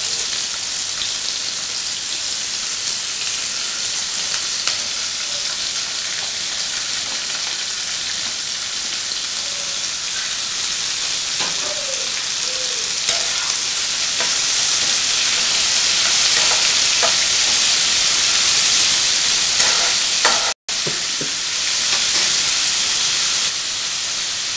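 Chopped mixed vegetables sizzling as they fry in hot oil in a pan, with a few faint knocks. The sizzle grows louder a little past halfway and breaks off for an instant near the end.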